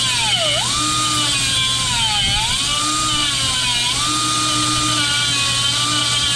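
Angle grinder grinding into a cracked weld on a metal tank: a steady high motor whine whose pitch sags several times as the disc bites into the metal and then recovers. A steady low hum runs underneath.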